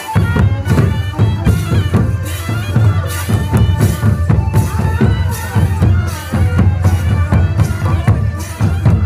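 Live traditional folk music: barrel drums beating a fast dance rhythm under a reedy wind-instrument melody.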